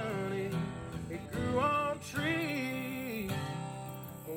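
Background music: a country-style tune with strummed acoustic guitar under a gliding melody line.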